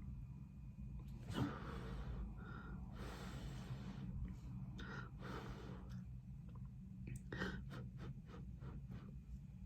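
A person eating close to the microphone: soft chewing and mouth sounds with breaths between mouthfuls, over a faint steady low hum.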